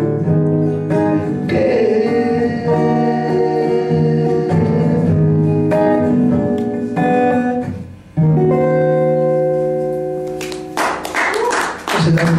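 Acoustic guitar strummed in ringing chords with a man singing. The sound drops away briefly about two-thirds through before a fresh chord is struck, and the strumming gets busier near the end.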